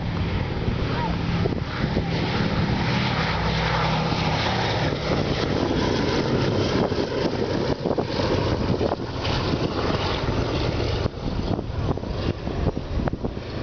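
Boeing B-17 Flying Fortress's four Wright Cyclone radial engines and propellers in a deep, continuous drone as the bomber flies low past overhead. In the second half, wind crackles on the microphone over the engine sound.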